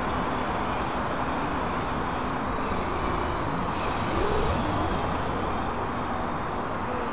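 Steady outdoor background noise, an even rushing haze, with a short rising-and-falling tone and a slight swell about four seconds in.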